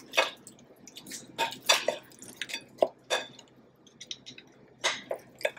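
A wooden spoon tossing baked chicken wings through thick, sticky honey garlic sauce in a glass bowl: irregular wet squelches and clicks.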